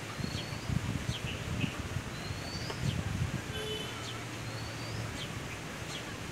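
Birds chirping: short, high, upward-sweeping chirps repeating every second or so over steady outdoor background noise, with irregular low thumps in the first few seconds.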